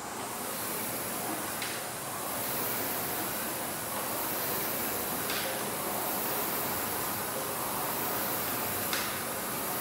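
Air rowing machine's fan flywheel whooshing steadily as the rower pulls through continuous strokes, with a few faint clicks from the machine.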